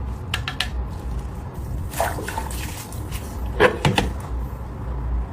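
A few light knocks and clicks of household objects being handled, over a steady low hum.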